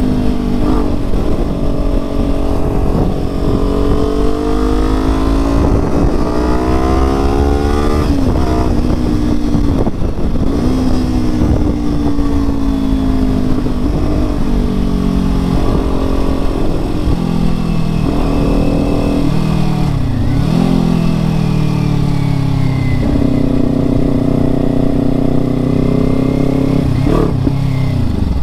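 Kawasaki Ninja sport bike engine pulling through the gears on the road. The revs climb and drop back at each gear change, ease off about two-thirds of the way in, then build again. Steady wind rumbles on the microphone throughout.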